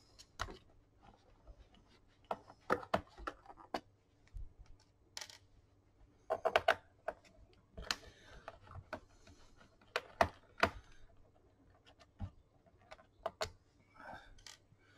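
Irregular light clicks and taps of a screwdriver working the screws in an HP 250 G7 laptop's plastic base, along with knocks from the laptop being handled on the desk.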